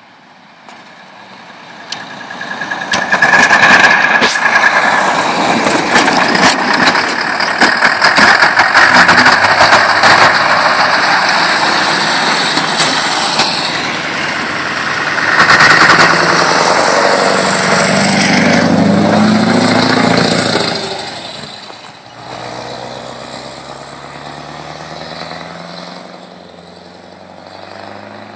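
Scania R500 truck with a straight-pipe exhaust and a V8 engine passing close by. It is very loud and distorted on a phone microphone, with a crackling rattle. About twenty seconds in the engine note rises as it pulls away, then a quieter, slowly rising engine note carries on into the distance.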